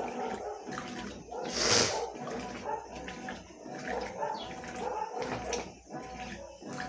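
Consul CWS12 washing machine mid-wash: water and clothes churning in the tub with a rough, repeating back-and-forth rhythm, and one louder splash about two seconds in.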